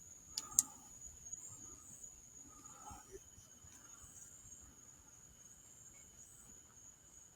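Faint, steady, high-pitched whine, with two short clicks about half a second in.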